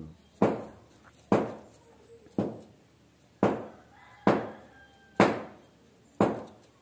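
A steady run of sharp knocks, about one blow a second, seven in all, each fading quickly, like repeated chopping or hammering.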